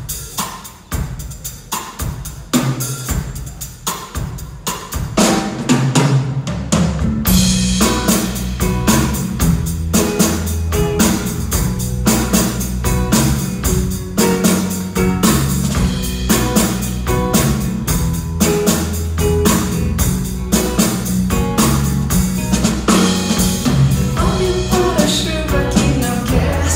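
Live band playing a song's instrumental intro: a drum kit beat alone at first, low bass notes joining after a couple of seconds, then the full band with cymbals from about seven seconds in.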